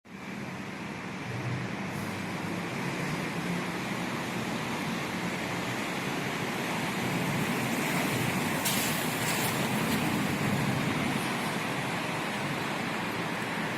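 Steady city street traffic noise: the rumble of passing cars and road noise, swelling a little toward the middle, with a brief hiss about nine seconds in.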